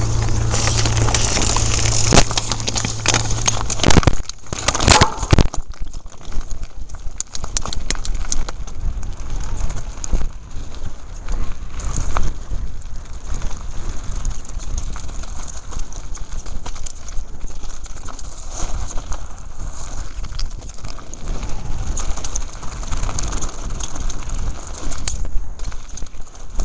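Downhill mountain bike descending a loose scree trail, heard from the rider's camera: constant rough wind rush on the microphone with frequent rattles and clatter from the bike over the rocks, and a few loud knocks about four to five seconds in.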